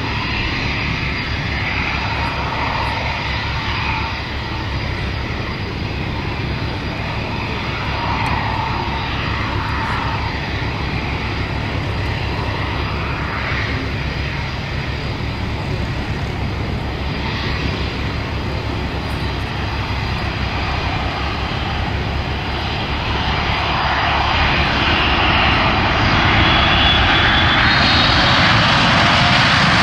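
Boeing 787 Dreamliner's twin turbofan jet engines: a steady roar as the airliner flies its display and lands. It grows louder and sharper over the last several seconds, with a faint whine on top, as it rolls along the runway toward the microphone.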